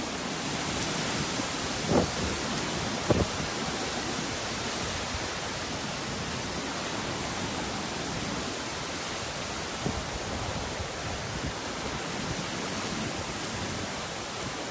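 Steady hiss of heavy typhoon rain and wind, with a few short thumps about two and three seconds in and again near ten seconds.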